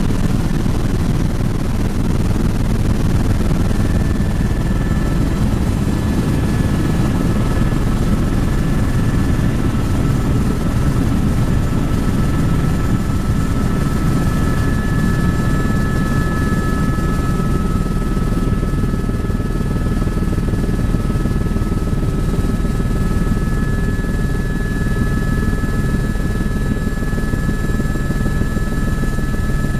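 Helicopter in flight heard from inside the cabin: a steady, dense rotor and engine rumble with a thin high whine held above it.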